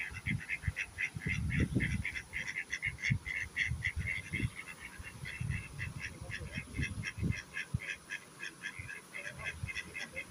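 Birds calling in a rapid, continuous chatter of short high calls, several a second, over low rumbling bumps on the microphone.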